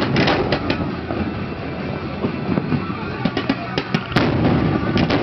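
Fireworks display going off: a sharp bang at the start, then continuous crackling and popping as fans of gold comets are launched, with single sharp reports standing out and the loudest bang about four seconds in.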